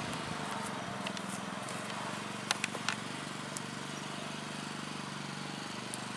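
An engine running steadily, a low even hum, with a couple of faint clicks about two and a half and three seconds in.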